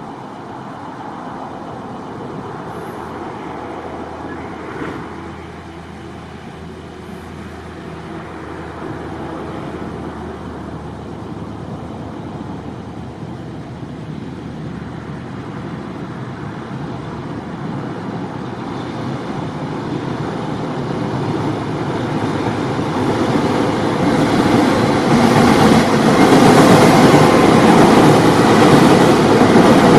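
A container freight train hauled by a JR Freight EF210 electric locomotive crosses a railway bridge, its wheels rumbling on the rails. The sound grows steadily louder as it approaches and is loudest near the end, as the container wagons pass close by.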